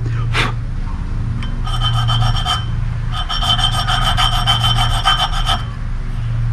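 Small hand file rasping across brass brazed onto the teeth of a cast-iron gear: two runs of quick strokes, the gear ringing with a steady high tone while the file works. The file catching on the cast iron of the tooth is the sign that enough brass has been taken out. A steady low hum runs underneath.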